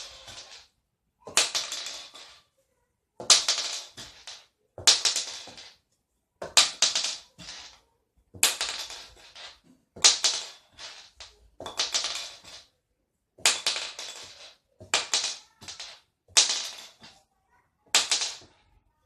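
A .410 shotgun shell tossed and landing on a hard surface, over and over: each landing is a sharp hit followed by a short clatter, about a dozen times, roughly every one and a half to two seconds.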